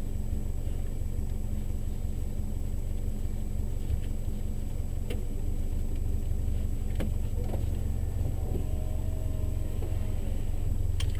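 Subaru rally car's flat-four engine idling steadily at a standstill, heard from inside the cabin, with a few light clicks.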